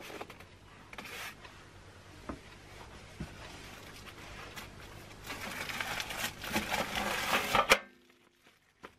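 Packaging being handled by hand: cardboard, styrofoam and a plastic-wrapped manual rustling and scraping, with scattered clicks. It grows louder in the second half and stops abruptly about a second before the end.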